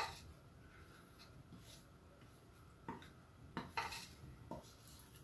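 A wooden spoon knocking and scraping on a ceramic plate as ground spices are pushed off it into a frying pan: one sharp clink at the start, then a few soft taps from about three seconds in.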